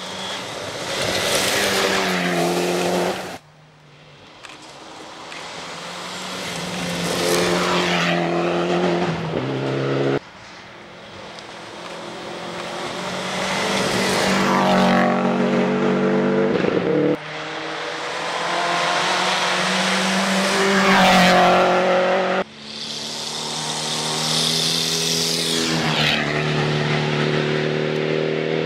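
Rally car engines revving hard and shifting up through the gears, in about five short clips. Each clip grows louder and then cuts off suddenly.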